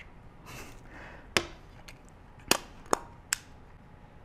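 Sharp mechanical clicks and snaps of a Pentax K1000 35mm film camera being worked by hand: the rewind knob pulled up and the back popped open, then the body handled and set down. There is a light rustle early, one click about a second and a half in, and three more in quick succession about two and a half to three and a half seconds in.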